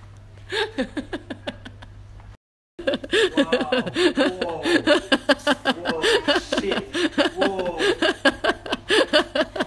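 A woman laughing hard in a long run of rapid giggles. The sound drops out completely for a moment about two and a half seconds in.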